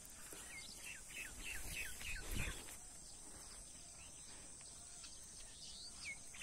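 A bird calling a quick series of short downslurred whistled notes, about four a second, that stops and starts again near the end. A steady high insect drone runs underneath, and there is a brief low thump about two and a half seconds in.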